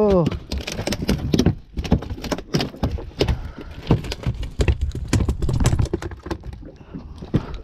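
Irregular knocks, taps and clatter on a small boat's deck, footsteps among them, as fish and gear are handled after a catch.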